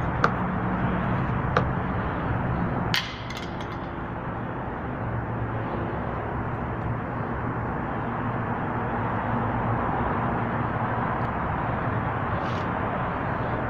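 A steady hum and hiss with a few sharp clicks or knocks, the loudest about three seconds in.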